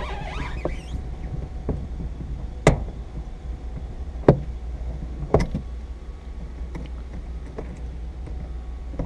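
Three sharp knocks, about a second and a half apart, with a few fainter clicks, over a steady low hum.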